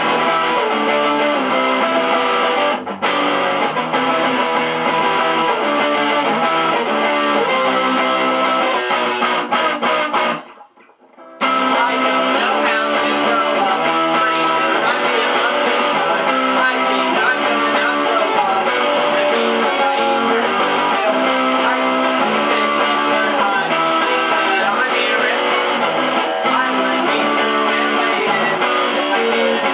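Electric guitar strumming pop-punk chords in an instrumental stretch. The playing stops dead for about a second around ten seconds in, then comes back in.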